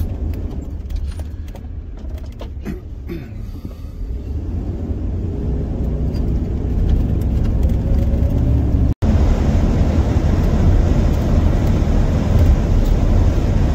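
Van's engine and road noise as it pulls away and picks up speed, the engine note rising over a few seconds. After that comes a louder, steady rumble of cruising. The sound cuts out for a split second about nine seconds in.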